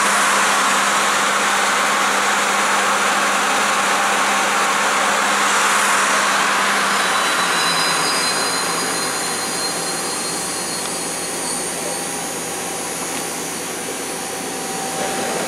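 Mazak Nexus CNC lathe running with a steady whir and a low hum. About seven seconds in the hum stops and the noise gradually quietens, leaving thin high whines.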